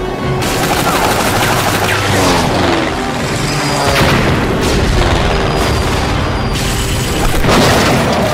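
Air-raid battle sound effects: machine-gun fire and explosions, with falling whistling tones about two to three seconds in and loud peaks near the middle and the end, over dramatic music.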